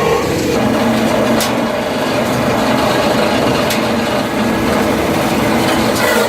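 Wood crusher running, a steady loud mechanical din with a few held tones through it, and two brief sharp clicks, one about a second and a half in and another near four seconds in.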